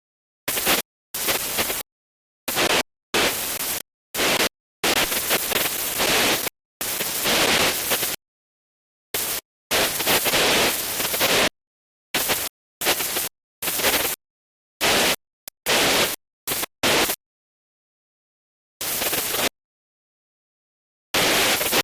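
Voicemod's 'Out of range' voice-changer effect: bursts of radio-style static that cut in and out abruptly, with dead silence between them, like a transmission breaking up out of range.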